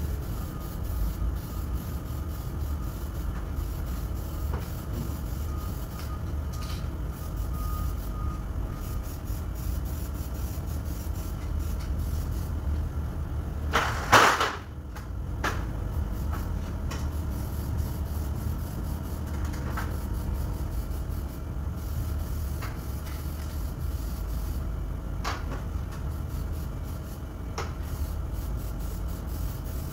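Steady low background rumble with faint scattered clicks, broken about halfway through by one brief, loud scrape as an aluminium stepladder is shifted against the floor.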